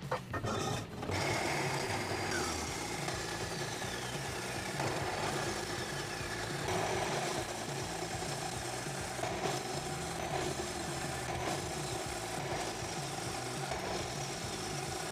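Horizontal metal-cutting band saw running, its blade sawing steadily through a clamped metal bar.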